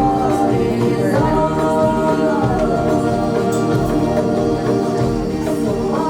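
Music with singing voices: a held, gliding sung melody over a steady low accompaniment.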